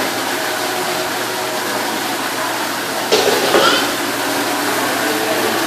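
Indistinct background chatter of a crowd over a steady hiss, with a sudden louder voice about three seconds in.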